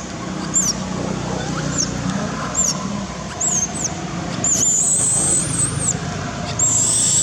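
Short, very high-pitched animal chirps repeated about once a second, then two longer warbling high calls in the second half, over a steady low background rumble.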